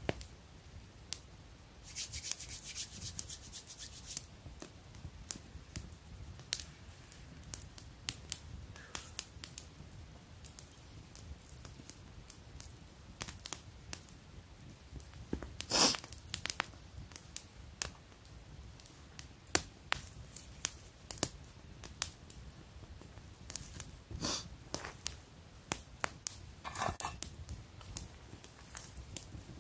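Small wood campfire crackling, with irregular sharp pops and snaps; the loudest snap comes about halfway through. A short stretch of rustling about two seconds in.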